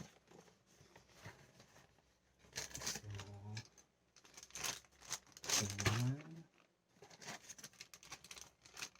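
Plastic toy wrappers crinkling and rustling in a few short bursts as the packets are handled and opened.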